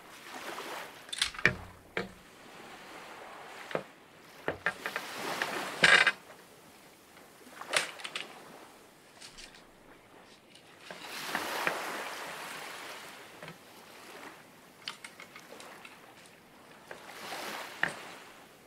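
Water sloshing and splashing in uneven surges, with scattered sharp clicks and knocks.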